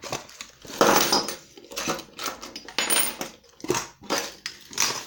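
Irregular clicks, knocks and clatter of small hard objects on a tabletop as the lock's metal keys are picked up and handled, the loudest knock about a second in.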